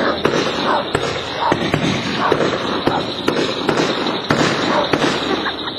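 Fireworks going off: a continuous dense crackle with many sharp cracks in quick, irregular succession.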